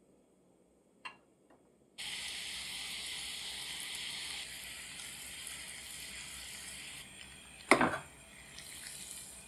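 Sugar-and-water syrup sizzling in an enamel saucepan over a gas flame as the caramel starts to cook: a steady hiss that starts suddenly about two seconds in. Near the end comes a single loud knock.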